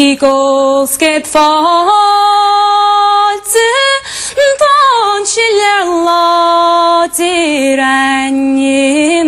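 A woman singing unaccompanied in the Irish sean-nós style: one voice holding long notes, with ornamented turns of pitch between them.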